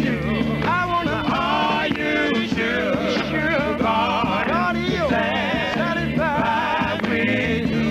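Male gospel vocal group singing in harmony, with voices sliding and wavering in vibrato over steady low bass notes.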